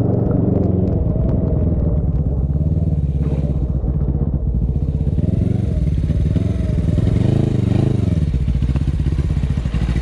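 Motorcycle engine running under way, its pitch wavering up and down about seven to eight seconds in as the revs change. From about four and a half seconds a steady hiss of rain and wet road joins it.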